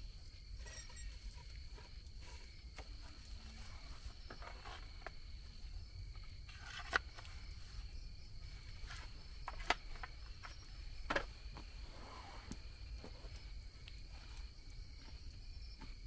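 A steady high insect trill runs on unbroken over a low rumble. A few sharp knocks break in about seven, ten and eleven seconds in.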